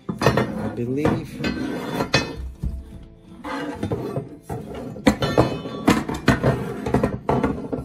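Black steel handle tubes of a push reel lawn mower clattering and clinking against each other and the tabletop as they are picked up and rearranged, a run of many quick metallic knocks.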